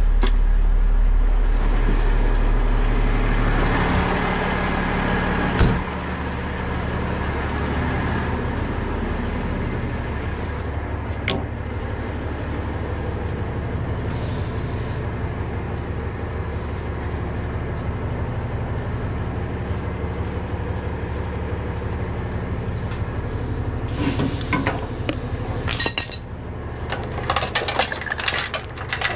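Heavy tow truck's diesel engine running steadily, a little louder and deeper for the first few seconds, with one sharp knock about six seconds in. Near the end, steel tow chains clink and rattle as they are handled.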